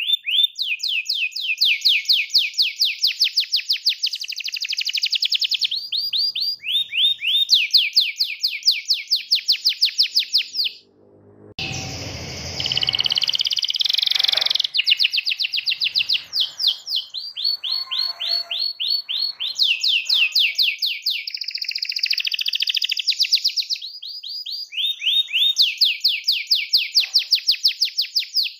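Domestic canary singing a long rolling song: fast trills of rapidly repeated, high, downward-sweeping notes in phrases of a second or two. There is a short break about eleven seconds in, followed by a few seconds of noisier sound with a low rumble under the song.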